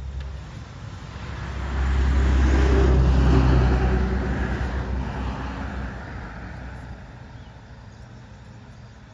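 A motor vehicle passing close by: its engine rumble swells a second or two in, is loudest around three seconds in, then fades away.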